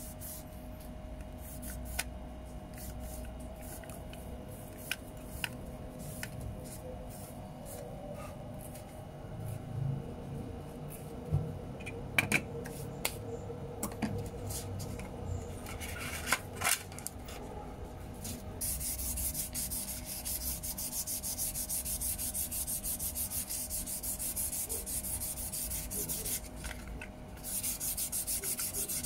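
Sandpaper rubbed by hand over the plastic housing of a Nissan 180SX digital climate control unit. At first there are scattered clicks and knocks of handling the part. About two-thirds of the way in, a fast, steady back-and-forth scratching of sanding strokes starts, with a brief pause near the end.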